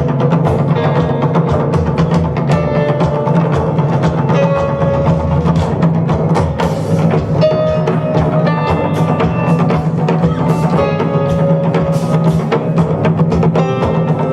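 Japanese taiko drums playing live with a funk band of drum kit, bass guitar and keyboard: dense, driving drum strokes over a steady bass line, with held keyboard notes on top.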